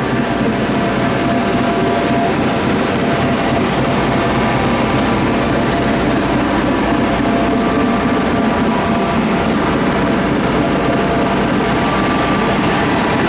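Passenger car ferry under way: a steady engine drone with a few held tones over a dense rush of wind and water noise.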